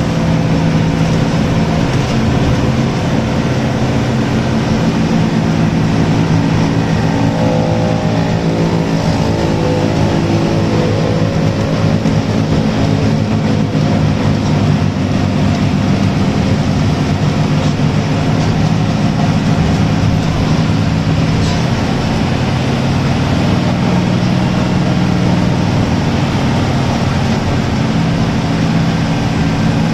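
Coach bus engine running steadily under way, heard from inside the cabin over constant road and tyre noise, its pitch shifting a few times as the bus drives fast.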